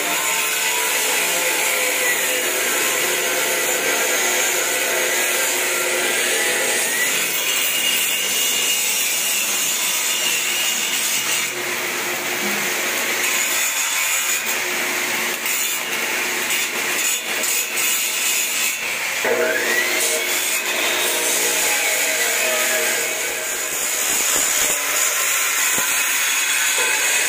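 Stick (arc) welding on square steel tubing: the steady hissing crackle of the electrode's arc.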